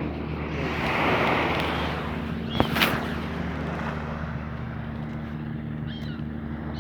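A boat's engine running steadily under wind and water noise, with a sharp knock and a brief high squeak near the middle.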